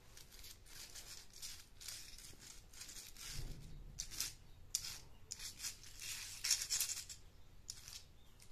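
Small plastic toy car handled and pushed over rough concrete: a string of short, dry rattling scrapes, thickest and loudest a little past the middle.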